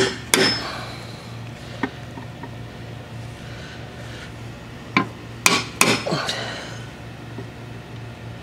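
Hammer striking a punch held against the mower deck, marking the mounting holes before drilling. Two blows at the start and a lighter one about two seconds in, then after a pause a quick run of four strikes, each ringing briefly.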